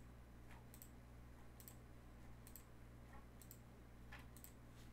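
Faint computer mouse clicks, about one a second, as a web page button is clicked over and over, with a steady low electrical hum underneath.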